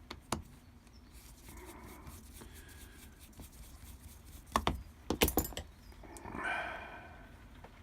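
Small metal clicks and taps of a screwdriver and tiny screws being worked out of the back of a padlock's cylinder core, with a louder cluster of clicks about five seconds in. A brief swelling, squeaky sound follows near the end.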